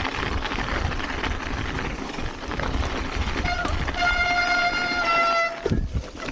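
Mountain bike brakes squealing under braking: a high, steady squeal begins about halfway through, holds for about two seconds and cuts off suddenly, over the steady rushing noise of the bike rolling downhill.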